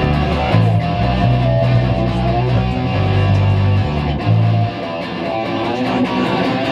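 A rock band playing live: electric guitars and a drum kit, with heavy low bass notes that drop out about two-thirds of the way through while the guitars and cymbals carry on.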